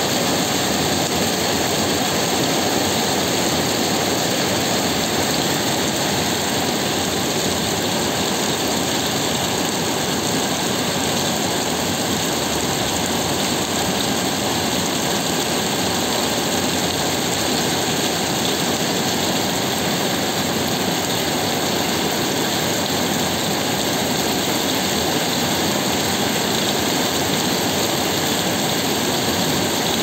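Heavy rain pouring steadily onto the sea, a dense, even hiss that never lets up.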